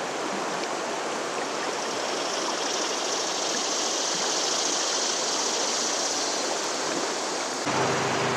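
Shallow, rocky river running steadily over riffles: an even rush of water. A low steady hum joins in near the end.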